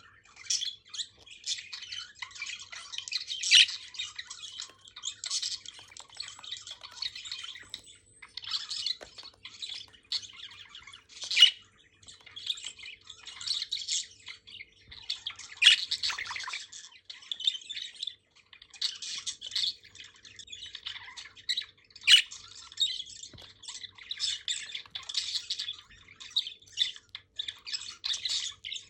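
Budgerigars (budgies) chattering and chirping together in a continuous warble of rapid high-pitched notes, broken by a few sharper, louder squawks and brief lulls.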